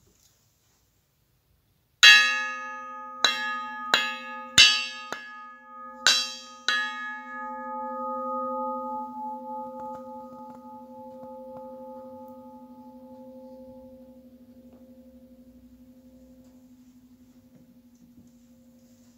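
A metal bell is struck about seven times over five seconds, the first strike the loudest. It rings on in a slowly wavering hum that fades away over the next twelve seconds.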